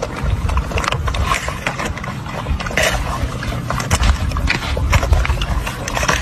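Beagle puppies eating noisily from metal bowls: chewing and lapping, with frequent short scrapes and clicks of the bowls on the ground.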